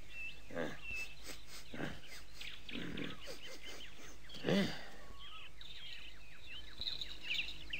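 Cartoon fox sniffing around, with a short, louder grunt-like vocal sound about halfway through, over chirping birds that grow busier in the second half.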